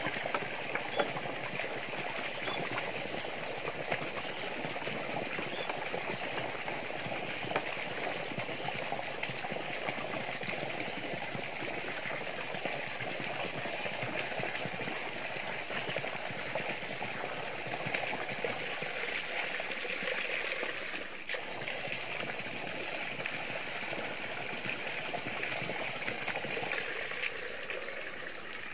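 Water running steadily from a hose and splashing into a drum, with a few light clicks in the first several seconds.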